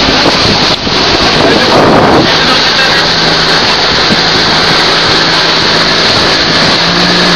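A boat engine running at a steady pitch under a loud rush of wind and water noise on the microphone; the engine hum stands out from about two seconds in.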